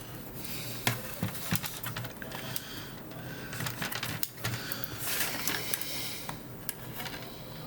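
Irregular clicks, taps and scraping of the small plastic and metal parts of a portable computer being handled and worked loose during disassembly.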